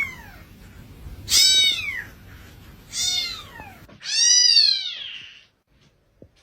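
Domestic cat meowing three times, each call falling in pitch. The third call, about four seconds in, is the longest, rising and then falling.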